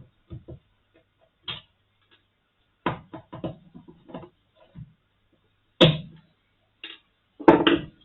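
Irregular clicks and knocks of hands and a tool working on a Brüel & Kjær 2250 sound level meter's casing during disassembly. The loudest knock comes about six seconds in, and a quick cluster of knocks falls near the end.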